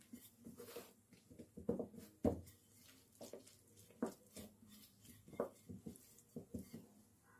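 Wooden rolling pin rolling out paratha dough on a steel plate: irregular soft knocks and rubs as the pin moves back and forth, the loudest knock about two seconds in.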